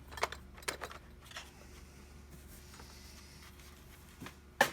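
A few light clicks and taps of small hard objects being handled, with a sharper click near the end, over a faint low hum.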